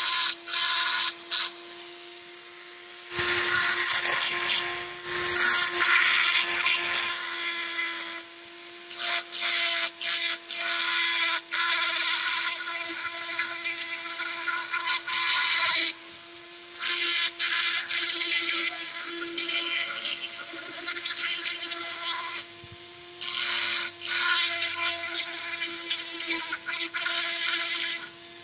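Handheld rotary tool running with a steady whine, its bit grinding into wood as letters are engraved. The grinding noise comes and goes in passes of a few seconds as the bit is pressed in and eased off, the motor whine steady underneath.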